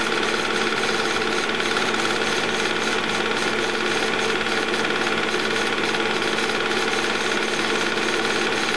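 Movie projector running: a steady, loud, rapid mechanical clatter from the film-advance mechanism, with a constant motor hum and whine under it.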